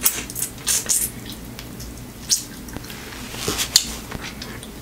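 Close-up wet eating sounds: chewing, lip smacks and sucking on seasoned shrimp, in irregular sharp clicks and squishes.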